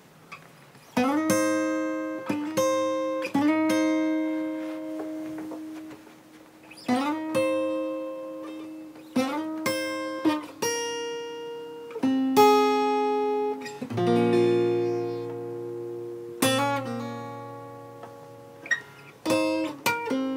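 Acoustic guitar playing a picked chord phrase: A chord shapes moving down the neck from the 9th to the 7th, 5th and 6th positions and resolving into B minor. The notes and chords are plucked in short groups, each one ringing and fading before the next, with brief pauses between the phrases.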